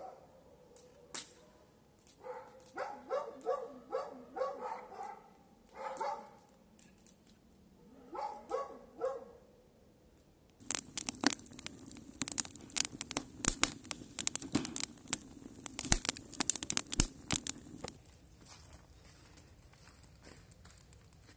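A dog barking in short runs through the first half, then about seven seconds of dense crackling and crumpling clicks.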